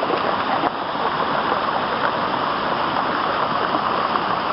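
Flooded creek running high after a downpour: a steady rush of fast-flowing floodwater.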